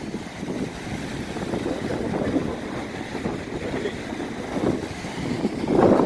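Flash-flood water rushing, with wind buffeting the microphone; the noise swells louder near the end.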